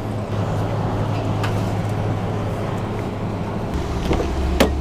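A steady low hum that gives way, about four seconds in, to the deeper rumble of a vehicle engine running, with a sharp click near the end as a car door handle is pulled.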